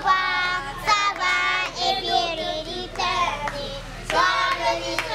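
Children singing a school song together.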